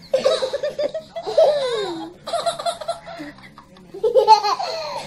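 A baby laughing in several bursts of giggles, with one high squeal falling in pitch about a second and a half in.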